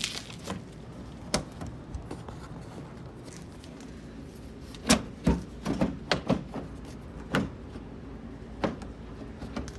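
Irregular plastic clicks and knocks from a pickup's front turn signal lamp housing being pushed and pried loose from its mounting: a few scattered ones, then a quick cluster about five to six and a half seconds in.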